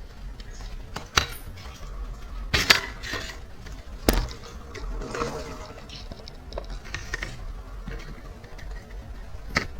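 Handling noise of a dirt bike's fender being worked off the frame: a few separate sharp knocks and clicks with quieter rubbing and rattling between them.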